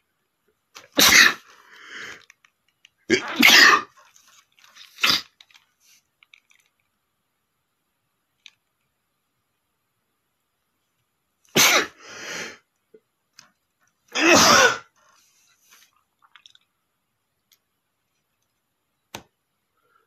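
A man sneezing loudly several times in two bouts: about three sneezes in the first few seconds, then, after a quiet pause, two or three more about ten seconds later.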